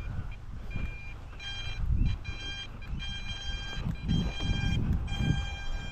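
A high electronic whine of several stacked pitches, cutting in and out about every second, over wind rumbling and gusting on the microphone.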